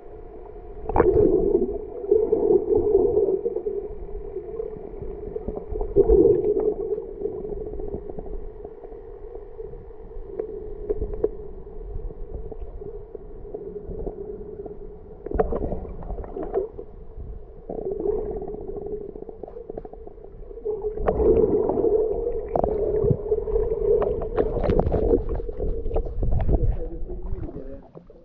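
Water heard through a submerged microphone: a steady muffled hum with repeated surges of rushing and gurgling water as the camera moves through the water, the longest surge near the end.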